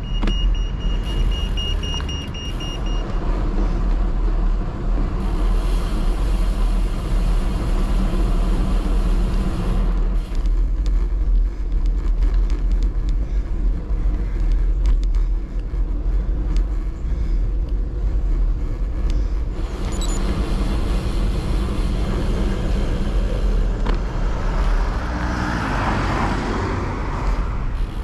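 Wind buffeting the microphone of a handlebar-mounted camera on a moving bicycle: a steady low rumble with road and tyre noise, changing abruptly at a few points where the footage is cut. For the first few seconds a pedestrian crossing beeps.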